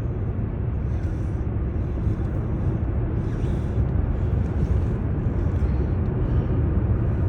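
Car cruising on an expressway: steady low rumble of tyres and engine heard from inside the cabin.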